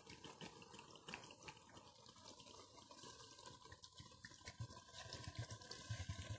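Water poured in a steady stream from a plastic bottle into an aluminium pot of chopped bamboo shoots, faintly splashing onto the pieces.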